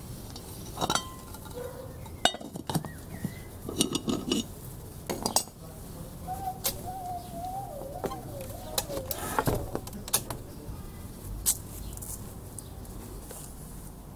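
Metal clinks and knocks of a lid being put on a cooking pot and a probe thermometer being handled, a series of separate sharp strikes. A bird calls with a wavering whistle in the middle.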